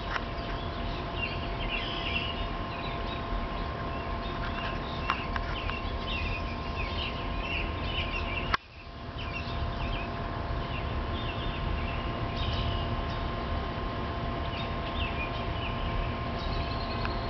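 Outdoor tornado warning siren sounding a steady two-pitch tone, with birds chirping and a low wind rumble on the microphone. A sharp click about eight and a half seconds in is followed by a brief dip in the sound.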